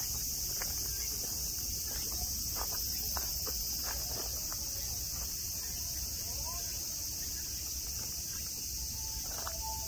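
Summer cicadas buzzing in a dense, steady chorus over a low rumble of city traffic, with a few short soft clicks in the first half, typical of deer tearing grass as they graze.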